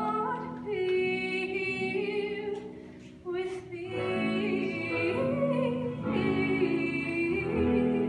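Female voices singing in harmony, holding long notes over a steady instrumental accompaniment, with a short break a little before three seconds in.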